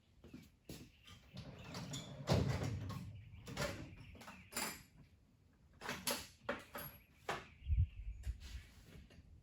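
A series of scattered metal clanks and knocks, with a louder rumbling stretch about two seconds in and a low thump near the end.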